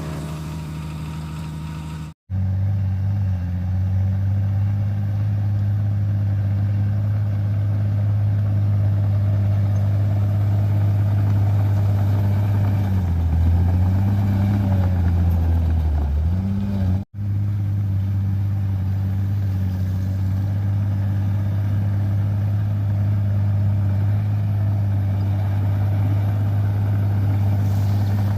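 A bulldozer's diesel engine running hard and steady with a deep hum. Its note sags and recovers twice about halfway through, and the sound breaks off for an instant twice at abrupt cuts.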